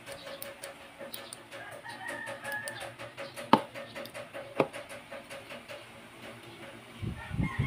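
Two sharp metallic clicks about a second apart as the parts of a 1911 pistol frame are worked by hand, over a faint steady hum. A rooster crows faintly in the background.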